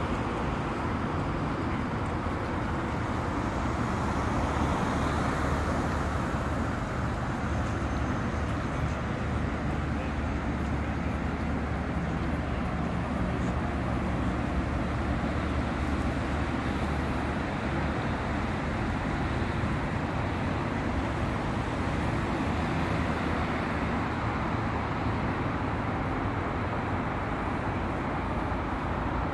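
Steady outdoor city street noise: a constant low rumble and hiss of road traffic, with no single vehicle standing out.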